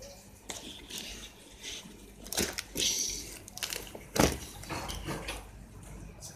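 Faint handling noise: scattered rustles and knocks, the loudest two about two and a half and four seconds in, over a low hum.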